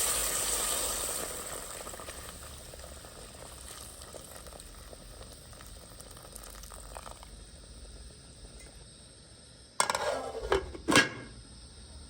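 Food bubbling and hissing in a cooking pot, loudest at first and dying down over the first two seconds to a low simmer. Near the end come a few sharp clinks and knocks of pots, a lid or a utensil.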